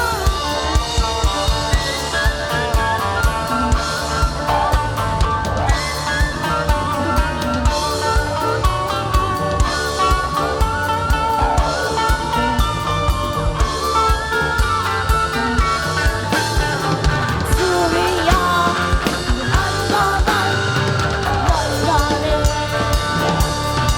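Rock band playing live: a drum kit keeps a steady beat under guitars, with some sliding notes.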